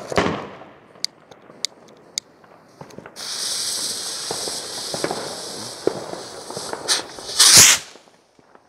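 Small Weco Star Rocket firework ignites in its launch stand: a few sharp crackles, then the rocket motor hisses steadily for about four seconds, ending in a loud short rush near the end.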